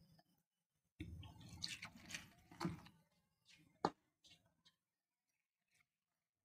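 Hand mixing and squeezing atta flour, moistened for dough, in a steel bowl: faint squishing and rustling for about two seconds, then a single sharp click about four seconds in.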